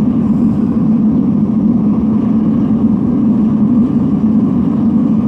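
Metal-melting furnace firing at full heat: the burner gives a loud, steady rushing roar.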